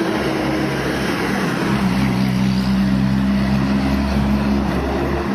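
A motor vehicle's engine running steadily, a constant hum over a wash of noise, growing a little louder about two seconds in.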